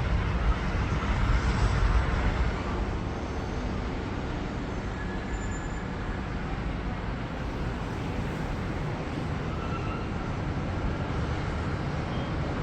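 Steady outdoor traffic noise from vehicles on nearby roads, an even rushing hum, with a louder, uneven low rumble during the first two seconds.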